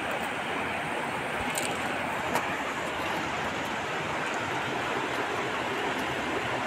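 Steady rushing of a mountain river flowing over rocks, with a couple of faint splashes from wading in the water.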